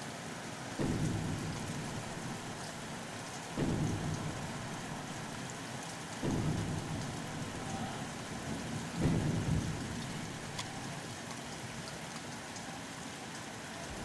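Steady rain falling, with four sudden deep booms in the sky about every three seconds, each dying away over a second or so. The uploader cannot place the booms and suggests thunder among other causes.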